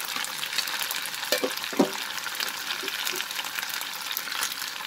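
Chicken pieces and fried potato cubes sizzling in hot oil in a non-stick frying pan: a steady crackling hiss. A brief scrape about two seconds in.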